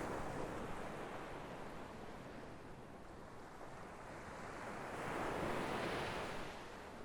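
Ocean waves washing in: a swell of rushing surf noise right at the start that ebbs away, then a second swell about five to six seconds in that fades again near the end.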